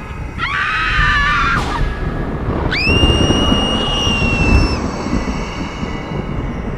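Layered eerie sound effects: a continuous low rumble under high-pitched cries, with a brief wavering one about half a second in and a long high shriek that rises sharply and then holds for about two seconds from about three seconds in.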